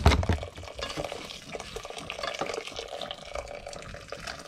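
Hot water poured from an electric kettle into a steel pot of couscous, with a yellow utensil scraping and stirring against the pot. A thump right at the start.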